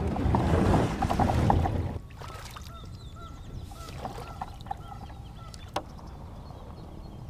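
A plastic kayak hull scraping and sliding over a concrete boat ramp as it is pushed off into the water, a loud rough noise with clicks that stops about two seconds in. After that, over quiet water, waterfowl call several times in short honks, with a single sharp click near the end.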